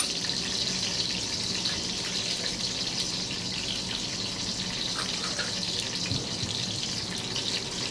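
Whole spices (peppercorns, star anise, cardamom, cinnamon and cloves) sizzling steadily in hot melted ghee, with faint scattered crackles.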